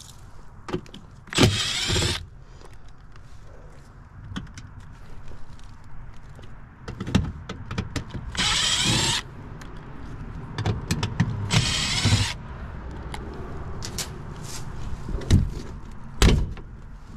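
Milwaukee cordless driver running in three short bursts, each under a second, backing screws out of a sheet-metal access panel on a heat pump package unit. Scattered clicks and knocks throughout, with two sharp knocks near the end as the panel is handled and lifted off.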